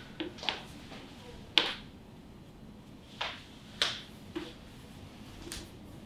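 Hands palpating a seated patient's spine during motion palpation: about seven short, sharp clicks and taps, scattered irregularly, the loudest about one and a half seconds in and near four seconds.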